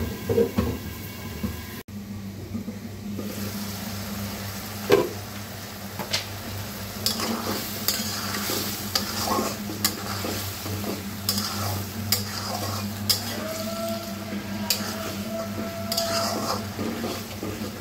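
Wooden spatula stirring and scraping chicken pieces in spice masala around a black iron karahi, with sizzling and frequent knocks against the pan. This is the koshano stage: the meat and spices being fried down in their own juices.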